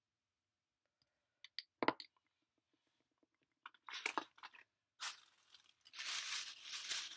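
A few light clicks, then packaging crinkling and rustling as it is handled, loudest near the end.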